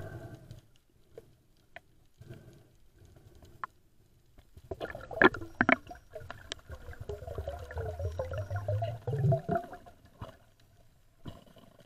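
Underwater sound as a freediver swims down to the seabed: faint ticks at first, then a few sharp clicks and knocks about five seconds in, followed by a low rushing and gurgling of water for several seconds that fades out near the end.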